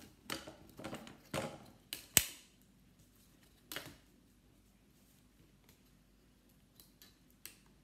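Light taps and scrapes from a pen and ruler handled on paper over a wooden tabletop, with one sharp click about two seconds in. After that only a couple of faint ticks.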